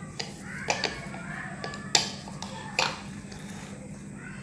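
Hands shaping soft bun dough into balls on a stainless steel plate: a handful of sharp clicks and taps, the loudest about two seconds in.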